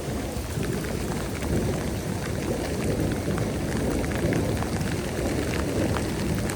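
Heavy rain falling: a steady hiss with a low rumble underneath and scattered ticks of drops.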